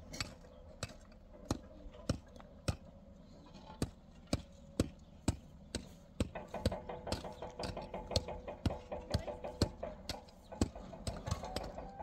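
A steady run of sharp, short knocks or taps, about two or three a second, over a faint steady tone.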